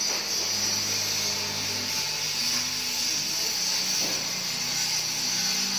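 Combination blind being raised and lowered with its pull chain: a steady whirring rattle from the chain running through the roller clutch.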